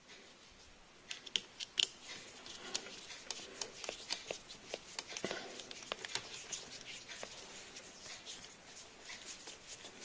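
Hands working wires and the white power cord into a plastic wire clip at a refrigerator compressor's start relay. A run of small sharp clicks and rustling, beginning about a second in, with the sharpest clicks near the start.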